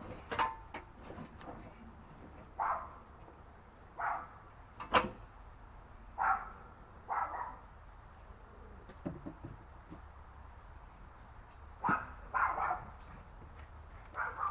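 A dog barking in short single barks, spaced a second or two apart, with a sharp knock about five seconds in.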